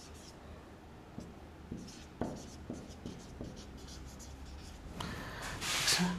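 Dry-erase marker writing on a whiteboard: short scratchy strokes as the letters go down, then near the end a louder hiss lasting about a second.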